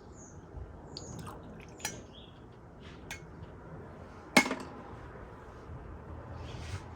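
Light clinks and taps of cups and glassware being handled, with one much louder clink about four and a half seconds in.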